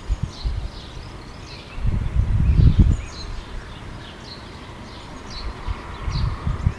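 Small birds calling, a series of short falling chirps about once a second, over an irregular low rumble that swells about two to three seconds in and again near the end.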